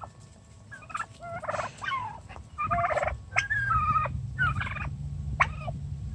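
Turkey hen calling in a string of short, pitched calls, about one every half second, starting about a second in.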